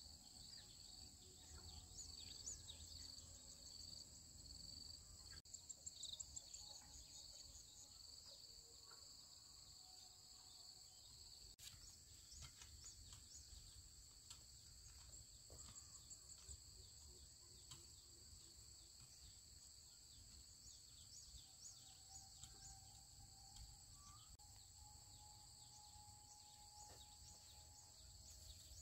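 Faint, steady high-pitched insect chirring, with a louder quick trill about six seconds in.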